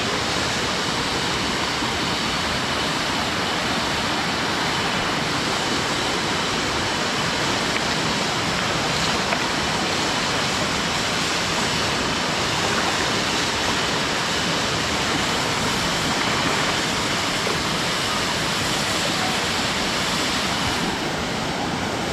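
Waterfall rushing close by: a steady, loud, even wash of falling water with no breaks.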